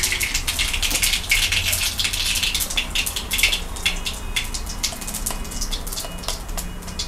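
Black mustard and cumin seeds spluttering in hot oil in a steel kadai: rapid crackling pops that are dense at first and thin out to scattered pops over the last few seconds.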